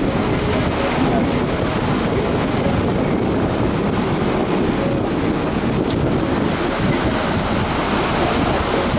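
Waves breaking and washing around the steel pilings of a pier in a rough sea, with wind buffeting the microphone; a steady low rumble runs underneath.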